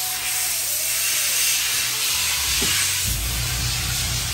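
A steady, loud hiss, with a low rumble joining in about halfway through.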